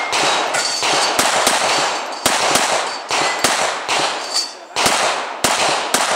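Rapid shots from a Ruger .22 rimfire pistol, about a dozen at an uneven pace of roughly two a second, each one trailing off in echo.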